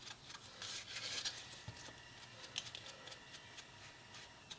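Faint soft dabbing and rubbing of a foam ink-blending tool along a paper-covered chipboard edge, with small taps and rustles, a little louder in the first second or so.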